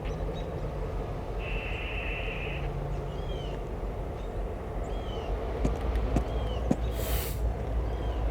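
Diesel switching locomotives rumbling as they work a cut of freight cars, the rumble growing louder about five and a half seconds in, with a few sharp knocks and then a short hiss. A bird chirps repeatedly over it.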